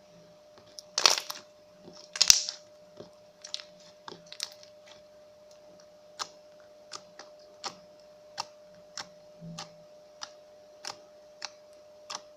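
Homemade slime being squeezed by hand: two loud crunchy squelches, then a steady run of sharp popping clicks, about three every two seconds.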